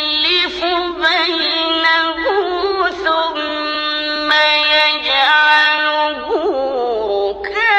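A male Quran reciter chanting in melodic tajweed style, in a high register, holding long notes and ornamenting them with quick melodic turns.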